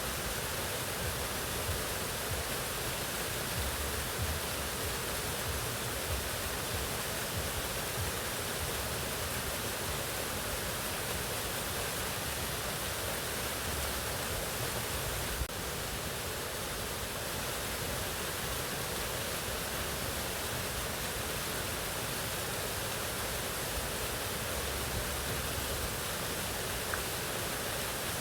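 Waterfall: a steady, even rush of falling water with no break, with a slight tick and a small drop in level about halfway through.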